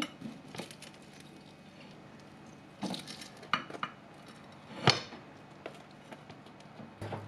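Wooden chopsticks knocking and scraping on a ceramic plate as pieces of crispy roast pork belly are turned and set down. There are a few scattered clicks, the sharpest about five seconds in.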